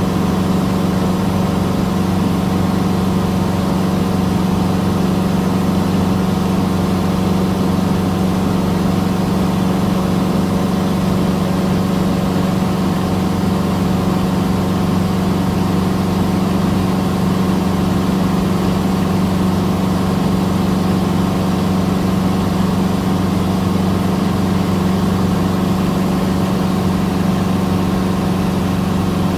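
Cessna 150's Continental O-200 four-cylinder engine and propeller droning steadily in cruise flight, heard from inside the cockpit, with a strong low hum that never changes.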